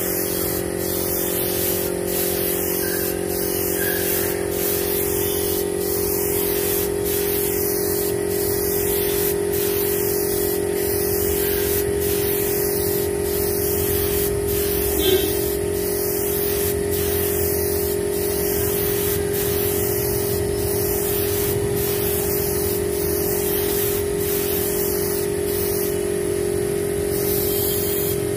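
Compressed-air spray gun spraying wood finish, a steady hiss over the steady hum of the air compressor, with one brief click about halfway through.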